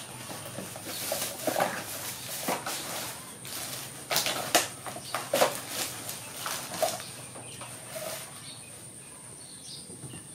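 Crinkling and rustling of a disposable diaper and items being rummaged out of a plastic basket, a run of sharp crackles that thins out after about seven seconds.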